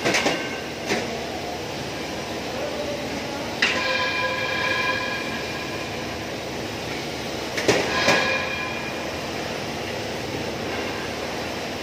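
Sheet-metal ductwork clanging as it is worked overhead: five sharp metallic knocks, two near the start, one about three and a half seconds in that rings on for a second or so, and a close pair about eight seconds in. A steady noisy hum of the building lies underneath.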